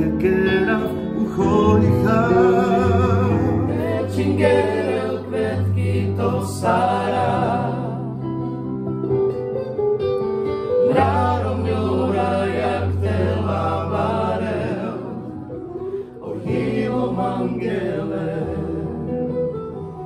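Slow song sung with vibrato, accompanied on an electronic keyboard.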